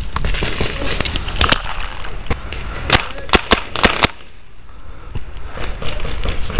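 Paintball marker shots: about seven sharp pops, a quick pair about a second and a half in, then five more in a run between about three and four seconds in, over rustling handling noise from the marker and gear.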